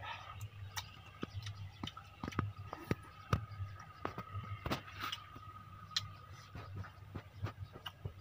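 Small irregular clicks and crackles of a rambutan's rind being torn and peeled by hand, over a faint steady high tone.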